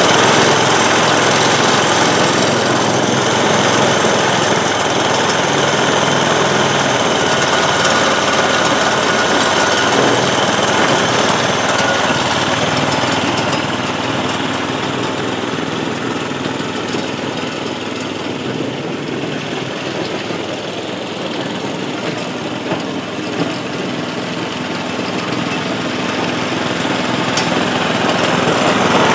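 Small gas engine of a DR Powerwagon motorized utility cart running steadily after being started, on a test run of its newly fitted fuel tank and fuel line. It fades somewhat as the cart is driven away and grows louder again as it comes back near the end.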